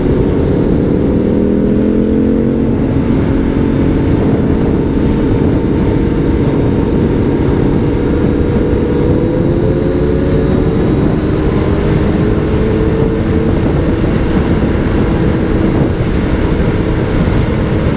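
Kawasaki Z900's inline-four engine running at highway cruising speed, its note rising gently over the first few seconds and then holding fairly steady. Heavy wind rush on the microphone runs under it.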